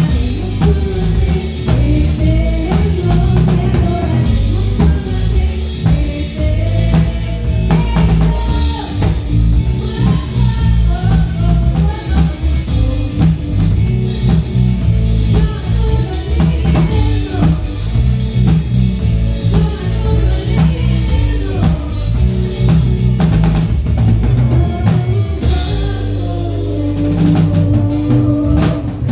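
Live band music played through a PA system: drum kit beating steadily under electric guitar, with a heavy low end and a voice singing. Near the end the drums thin out and held low notes ring on.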